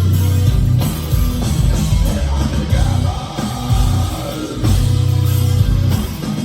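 Live heavy metal band playing: down-tuned, heavily distorted guitars chugging in stop-start riffs over a drum kit, loud and bass-heavy.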